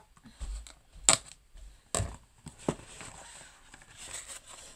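A box being opened and its packaging handled: a few sharp clicks or taps, the loudest about a second in and others about two and nearly three seconds in, with light rustling between.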